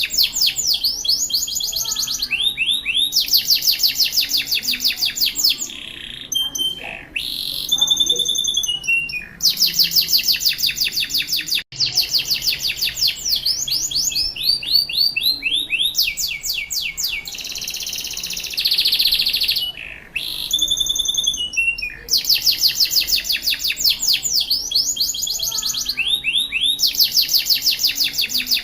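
Canary singing in full song: long runs of rapid, repeated high-pitched notes and rolling trills, broken by a few short pauses.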